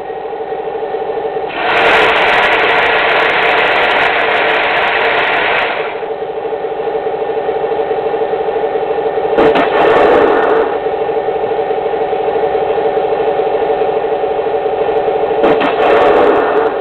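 Remote-control model tank running during a smoke-unit test: a steady, even hum, with three louder bursts of rushing noise. The first burst lasts about four seconds, a short one comes midway, and another comes near the end.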